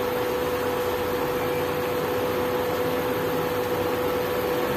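Chicken pieces cooking in a frying pan on a running induction cooktop: a steady hiss with a steady hum under it.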